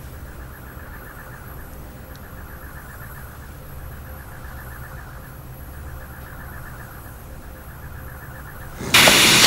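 Overhead robotic arm running with a low steady hum and a fast, even mechanical ticking. About nine seconds in, a sudden loud blast of noise breaks out, as the device bursts into smoke.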